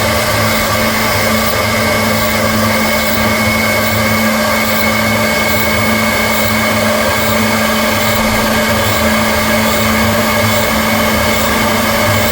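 CNC milling machine running steadily: the spindle motor gives an even whine with a hum beneath, unbroken and at a constant pitch.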